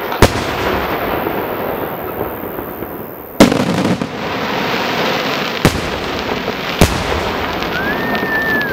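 Aerial firework shells bursting: four sharp bangs, the loudest about three and a half seconds in, over continuous crackling from the burning stars. A short whistle rises and falls near the end.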